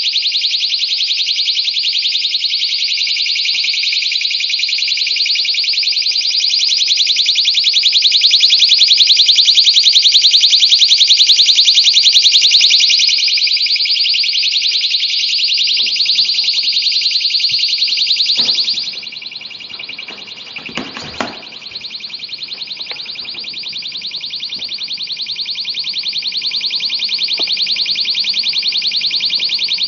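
Personal alarm shrieking very loudly with a fast warble. About two-thirds through, a few handling knocks are heard and the shriek becomes clearly quieter, muffled in a bucket of insulation.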